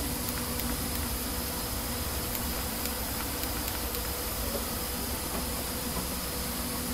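Steady hiss and low hum of a running computer picked up by an open microphone, with a few faint mouse clicks.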